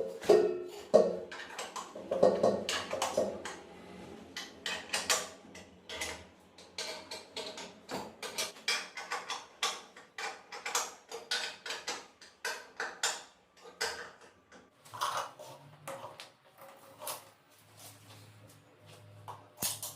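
Irregular run of sharp metallic clicks and clanks, a few a second, from hand tools and metal fittings being worked, with a few short ringing tones near the start.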